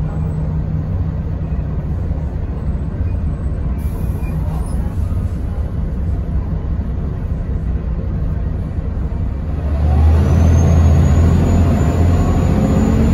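Mercedes-Benz O405NH bus engine and drivetrain heard from inside the cabin, with a steady low rumble while under way. About ten seconds in the engine note rises and gets louder as the bus pulls away harder, and a thin high whine joins it.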